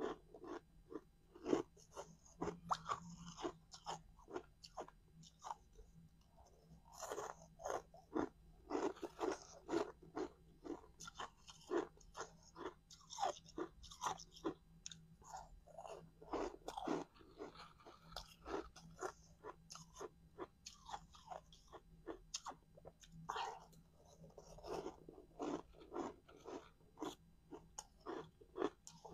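Crushed ice being bitten and chewed close to a clip-on microphone: a dense, irregular run of sharp crunches, sometimes several a second, with short pauses between mouthfuls.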